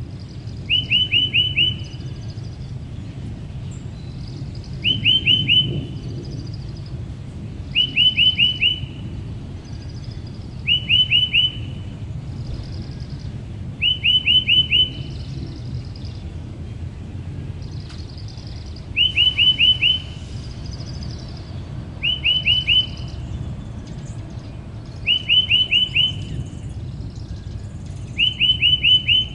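A songbird repeating a short phrase of four or five quick, clipped notes about every three seconds, nine times, with fainter higher chirps between phrases over a steady low background rumble.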